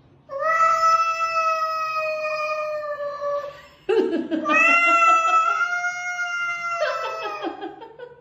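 A cat yowling in two long drawn-out calls, each about three seconds. The second starts low, rises and holds, then turns ragged near the end. It is a warning yowl from a spat between two cats, one pawing at the other.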